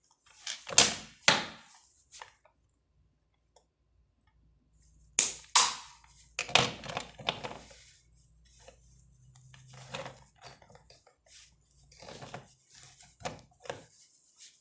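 Sharp snips of a cutter cutting through the individual wires of a Cat 6 network cable, mostly in pairs a half second apart, followed by softer clicks and rustles as the wires are handled.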